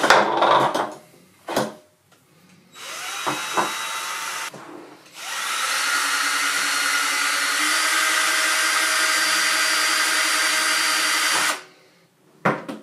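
Cordless drill spinning a wad of fishing line to strip it off several reels at once: a short run at lower speed, then, after a pause, a steady run of about six seconds whose whine rises as it gets up to speed, before it stops. A sharp click near the end.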